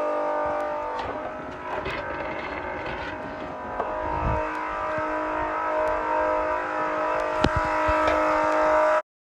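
Battery-powered Milwaukee M18 tool's electric motor running steadily with a pitched whine, then cutting off abruptly near the end.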